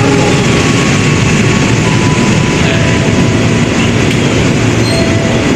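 Passenger train passing through at speed with a loud, steady rumble of wheels on rail. A horn blast ends just as it begins.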